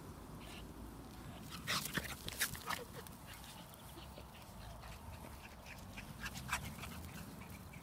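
Small Brussels Griffon dog giving a quick run of short, sharp vocal sounds about two seconds in, and one more after six seconds.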